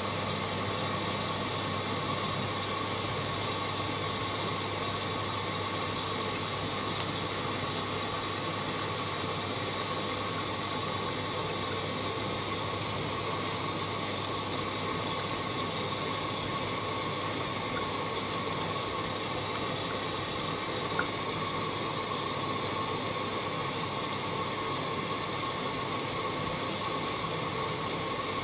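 Miele W1 front-loading washing machine in its wash phase, the drum turning a wet blanket through water. A steady motor hum carries a high whine.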